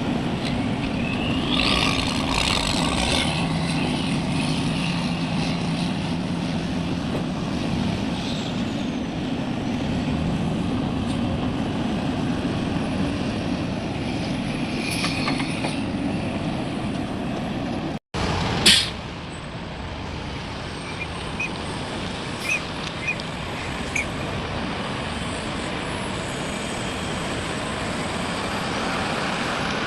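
Heavy diesel machinery, an excavator and dump trucks, running steadily. About two-thirds of the way through there is a brief dropout, then a short, loud hiss like an air-brake release, followed by a few faint short squeaks.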